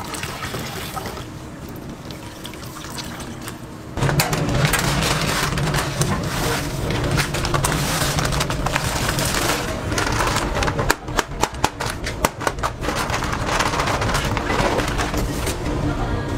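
Thick liquid pouring for the first few seconds. About four seconds in the sound jumps louder as a plastic sack of granular contents is emptied into a steel tub, a rustling, gritty pour full of sharp clicks that thicken into a rapid crackle near the middle.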